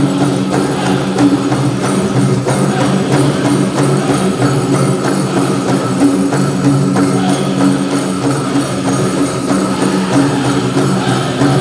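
Powwow drum group singing in unison over a steady, even drumbeat, with the bells on the dancers' legs jingling in time.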